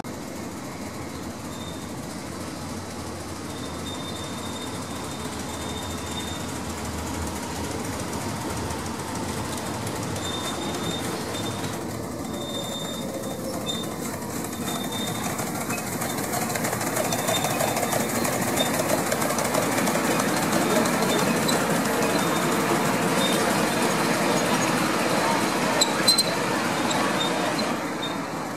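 Romulus-type miniature live-steam locomotive No. 2 pulling a train of passenger riding cars on a small-gauge park railway, approaching and going past: a steady running noise of the engine and wheels on the track that grows louder, with a few sharp clicks near the end, then drops away.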